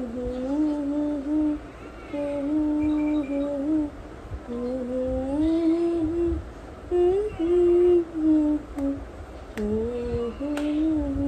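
A woman humming a slow lullaby to a sleeping baby, in short phrases of long held notes that slide from one pitch to the next.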